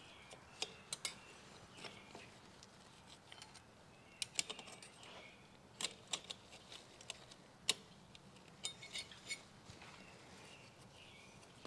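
Faint, irregular metallic clicks and clinks of motorcycle clutch plates, friction and steel, being slid one by one onto the clutch hub and basket.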